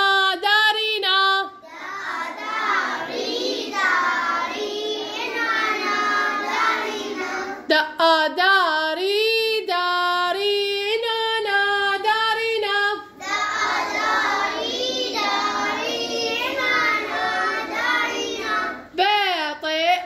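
High children's voices singing a melodic chant. A single clear voice alternates with passages where several voices sing together.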